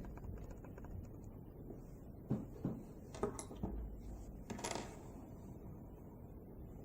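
Small metal engine parts lightly clinking as they are handled and set down, a handful of short clicks and clinks between about two and five seconds in.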